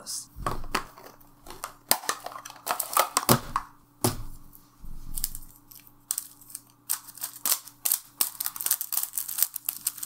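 Protective plastic film being peeled off the faces of a new QiYi MS 5x5 speed cube and crinkling, a run of irregular crackles and tearing, with a few dull knocks from handling the cube.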